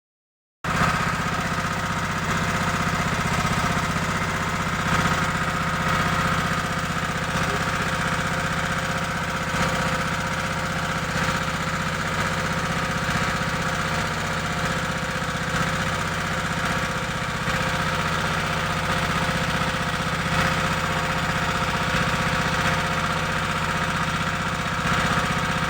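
A boat engine running steadily at an even speed.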